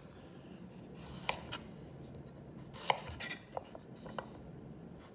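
Chef's knife slicing through a raw carrot and knocking against a wooden cutting board: several separate sharp knocks, starting about a second in.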